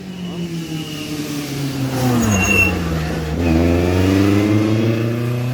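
Rally car engine on a special stage: the revs fall as the car slows for a corner, then rise again as it accelerates hard away, about halfway through.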